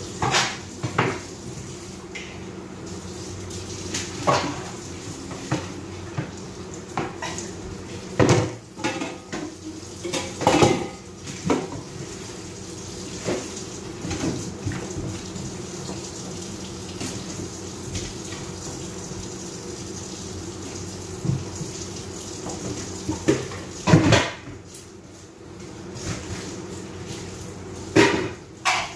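Dishes, pots and cutlery being washed in a kitchen sink: irregular clinks and clatters over running tap water.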